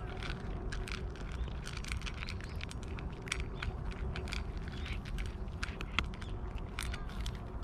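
Cats crunching dry kibble from a metal dish: a quick, irregular run of crisp crunches and clicks, over a low steady background rumble.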